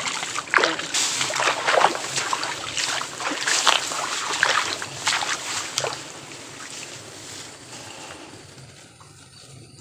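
Footsteps wading through shallow swamp water, a splash or slosh about every half second to a second, fading away after about six seconds.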